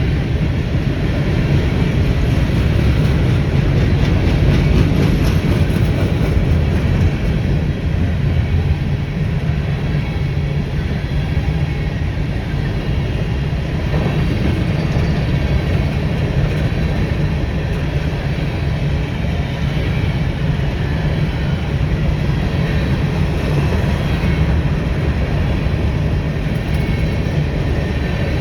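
BNSF freight train rolling past, its cars on the rails making a steady, loud rumble.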